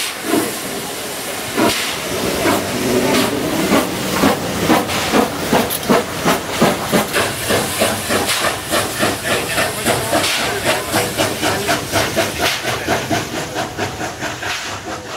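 MÁV class 411 (USATC S160 2-8-0) steam locomotive starting off, with steam hissing and its exhaust chuffs coming quicker and quicker as it gathers speed. The sound fades away near the end.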